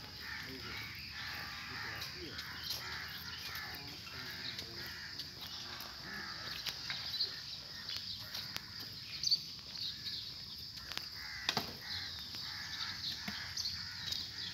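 Birds calling among trees: short, scattered calls over a steady outdoor background, with one sharp click a few seconds before the end.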